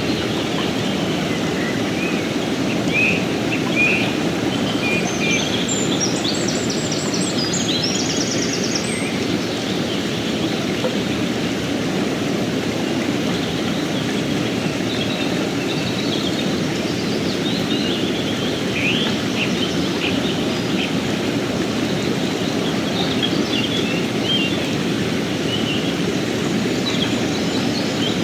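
Fast mountain river rushing steadily over rocks. A few birds chirp briefly above it, in two spells.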